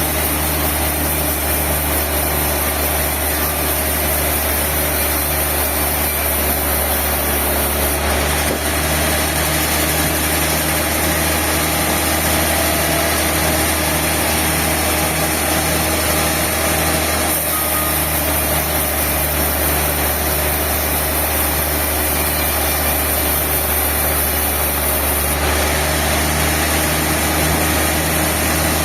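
Sawmill machinery running steadily: a constant engine-like hum with a regular low pulsing and a high hiss that shifts in level a few times.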